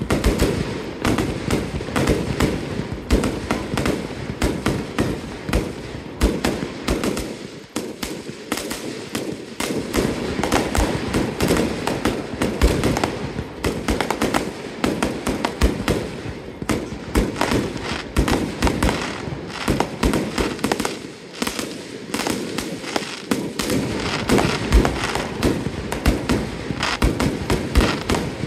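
Fireworks display: a rapid, continuous string of bangs and crackling from bursting aerial shells and ground fountains, with short lulls about seven seconds in and again about twenty-one seconds in.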